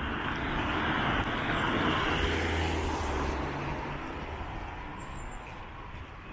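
A car passing close by: its tyre and engine noise swells over the first two or three seconds, then fades away.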